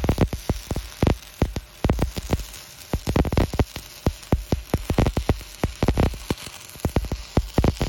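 Stick-welding arc from a cellulosic pipeline electrode burning on steel pipe: a steady, irregular crackling with sharp pops several times a second.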